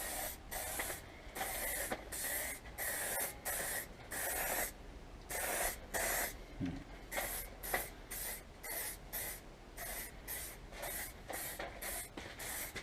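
Aerosol spray can of clear lacquer hissing in short bursts, about two a second and a little quicker later, as quick passes of clear coat are laid onto motorcycle fairing panels.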